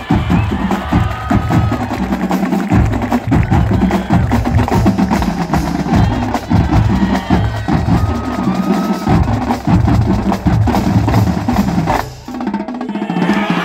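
Massed marching drum line playing a fast, dense cadence together on snare drums, multi-tenor drums and bass drums, then stopping abruptly near the end.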